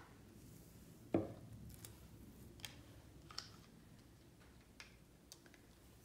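Faint handling of a plastic squeeze bottle of acrylic paint: one sharper knock about a second in, then a few scattered light clicks.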